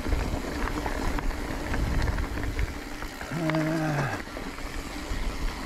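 Mountain bike rolling over loose dirt and gravel: a rough tyre rumble with scattered clicks and rattles from the bike. About three and a half seconds in, a short steady-pitched hum from the rider.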